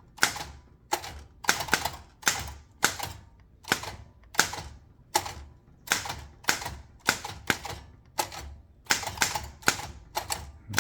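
LC Smith & Bros. No. 8 manual typewriter being typed on: individual key and typebar strikes in an uneven, unhurried rhythm, about two to three a second, as a test sentence is typed.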